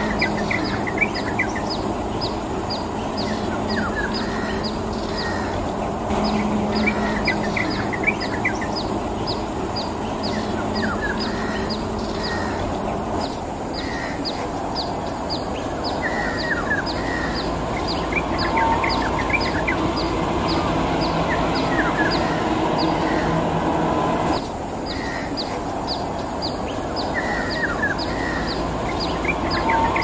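Yellow-vented bulbul singing short phrases of quick falling notes, repeated every few seconds. Behind it run a steady background hiss and a regular high ticking about twice a second.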